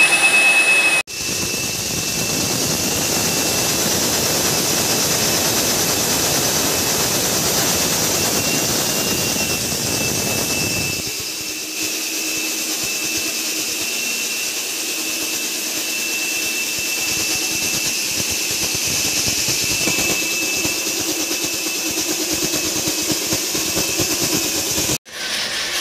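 Rig-mounted electric diamond core drill running while boring a 6-inch core through a reinforced-concrete beam: a steady high motor whine over a grinding noise. The sound breaks off for an instant about a second in and again near the end, and the low rumble under it drops away about halfway through.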